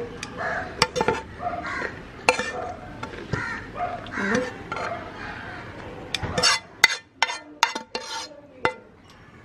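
Serving tongs clicking and clinking against a plate while noodles are piled onto it. The sharp clicks come irregularly and are busiest about six to nine seconds in.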